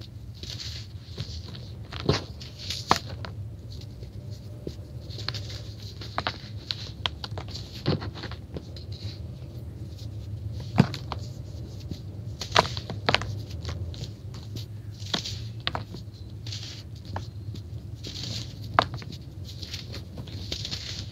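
Hands squeezing and crumbling soft, dry powdery blocks: a steady run of gritty crunching and rustling, with a sharp crack every few seconds as a chunk breaks apart.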